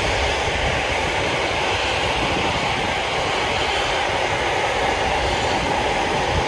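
Atlas V rocket's engines roaring as it climbs away from the pad, a steady, loud rumble and crackle that does not let up.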